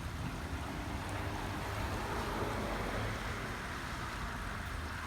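Wind buffeting the microphone as a low rumble, over a steady outdoor hiss that swells slightly midway and eases off.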